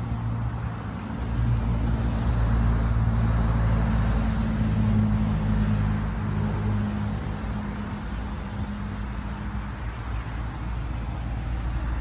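A car driving past on the street: low engine hum and tyre noise swell about a second in, hold, then fade near the end.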